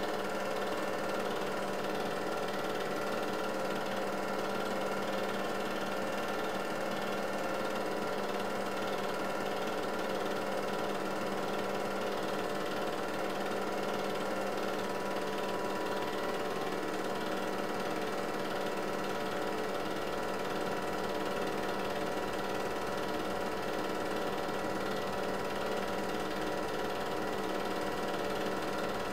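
8mm film projector running: a steady motor hum with the fast, even clatter of its film-advance mechanism.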